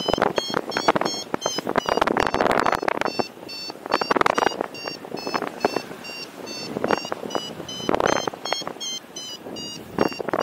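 Paragliding variometer beeping rapidly, about four short beeps a second: its climb tone, signalling that the glider is rising in a thermal. Gusts of wind rush over the microphone at intervals.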